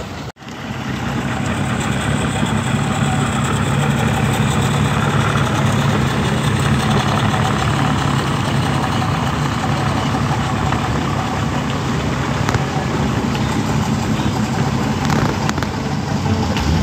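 Boat outboard motor idling steadily, with a brief dropout about half a second in.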